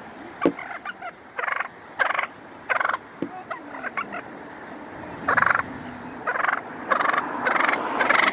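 Wild turkey tom gobbling repeatedly in short rattling bursts: a few spaced calls, then a quicker run of gobbles in the second half.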